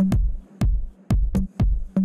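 Electronic background music with a steady beat of about four strikes a second, deep bass on each strike.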